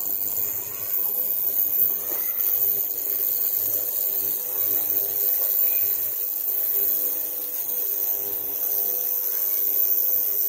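Ultrasonic milk stirrer running with its probe in a beaker of milk, a steady high-pitched whine over a lower hum as it mixes the sample.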